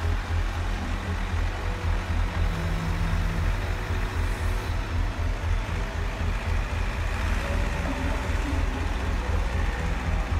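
Radio-controlled scale construction machines working in sand: a steady low rumble with brief faint motor whines.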